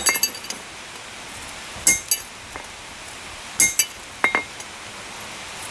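Hand hammer striking a flat chisel held on a steel horseshoe on the anvil, a handful of sharp metallic clinks at uneven intervals, cutting mane lines into the horse head. One blow just past the middle leaves a short ring.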